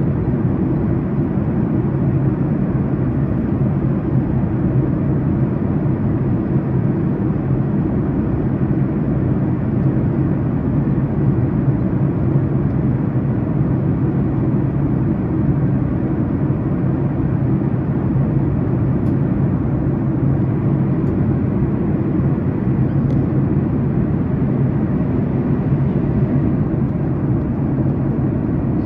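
Steady cabin drone of a Boeing 737-900ER in flight, heard from a window seat beside the engine: the CFM56-7B turbofan and the rushing airflow make an even, low rumble that does not change.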